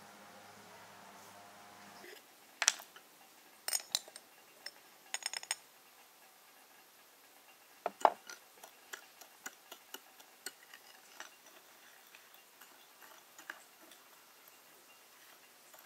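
A metal teaspoon clinking and tapping against a cut-glass bowl and a glass jar as ground spice is spooned out. There are a few sharp, ringing clinks, the loudest about eight seconds in, then lighter taps about twice a second. A faint steady hum runs under the first two seconds.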